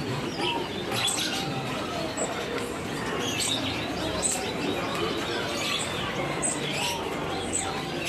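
Many caged songbirds chirping at once, a dense chorus of short, high chirps overlapping without pause.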